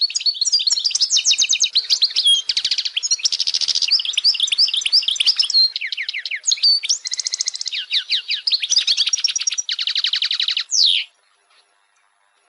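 European goldfinch singing: a fast, twittering song of quick high notes broken by several rapid buzzy trills, ending with a quick falling note about eleven seconds in.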